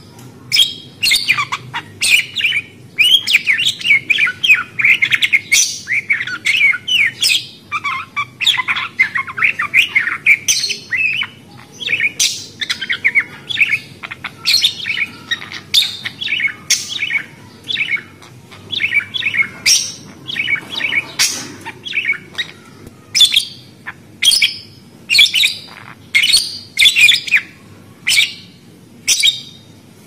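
Pet parakeets chirping and chattering. A dense run of warbling chirps fills the first half, then loud sharp calls come about once a second.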